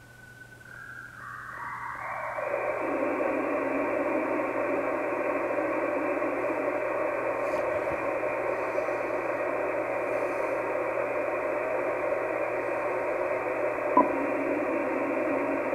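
Icom IC-756 Pro III receiver hiss on 6 m in USB, with no signal on frequency, shaped by its DSP IF filter. A narrow band of noise widens over about two seconds into a louder, full, steady hiss as the filter is opened from 50 Hz to 2.2 kHz. A single click near the end.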